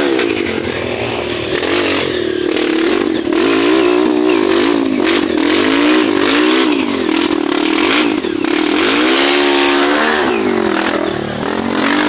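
Motorcycle engine revving hard under repeated bursts of throttle, its pitch climbing and dropping every second or so.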